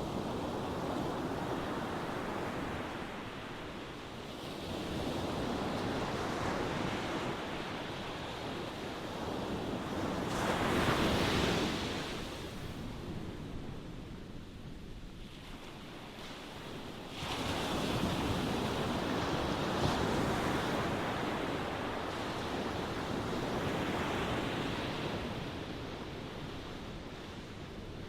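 Ocean waves breaking and washing ashore in slow swells that rise and fall. The loudest break comes about eleven seconds in, and another long surge starts a few seconds later.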